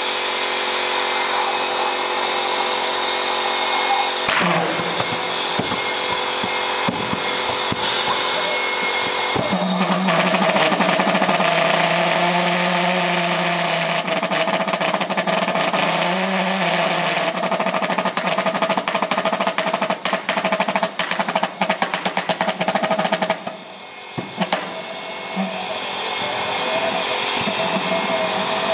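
Homemade pulse jet engine test rig running with its air supply: a loud, steady, motor-like noise, joined by a low hum about nine seconds in. Rapid, irregular crackling runs from about 14 to 23 seconds, then the noise drops off briefly near 24 seconds before picking up again.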